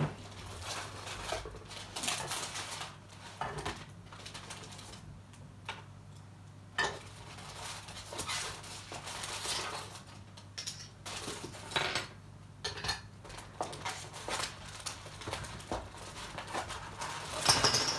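Plastic kit parts being handled and pulled out of their packaging: irregular clicks, taps and light rattling, with some rustling between them.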